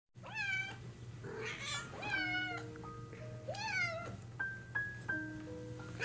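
Domestic cat meowing about four times, each meow a short call that swoops in pitch, over background music of soft held notes.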